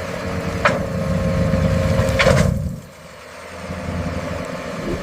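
Dump truck engine running with a steady whine over it. A sharp knock comes just under a second in and another around two and a half seconds in. The engine drops back about three seconds in, then builds again.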